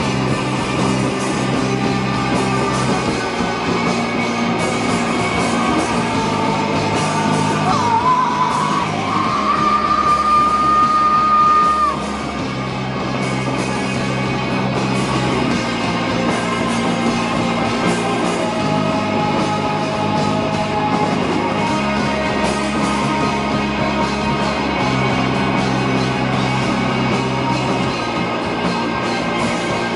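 Live rock band with electric guitars, bass guitar and drum kit playing loudly, with shouted vocals. About eight seconds in a high note bends upward and is held for a few seconds, cutting off about twelve seconds in, after which the band plays slightly quieter.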